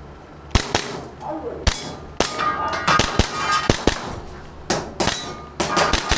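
Airsoft gas pistol fired in quick strings of shots during a timed practical-shooting stage, with BBs striking steel targets that clang and ring.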